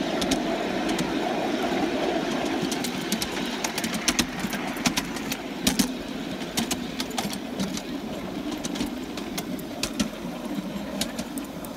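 3½-inch gauge live-steam locomotive and its ride-on train running along a raised miniature track: a steady rushing run of exhaust and wheels, broken by scattered sharp clicks, that gradually gets quieter.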